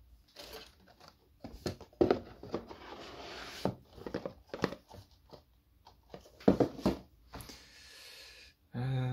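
Cardboard speedcube packaging being handled: a 4x4 cube set back into its box and the lid and boxes shuffled, giving scattered knocks, taps and rustles. A short voiced hum comes in near the end.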